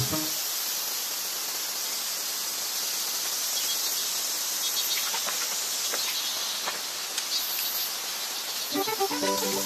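Steady high-pitched chorus of insects in summer woodland, with a few faint clicks around the middle.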